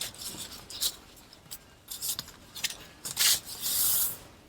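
Paper pages of a handmade junk journal rustling and swishing as they are turned and handled. Several brief swishes, with a longer, louder one about three and a half seconds in.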